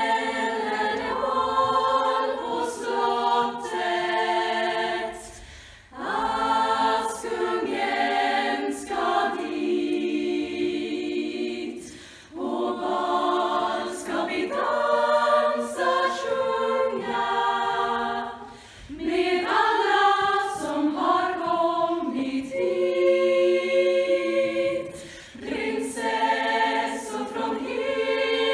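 Women's choir singing a cappella in Swedish, in phrases with short breaks between them about every six seconds.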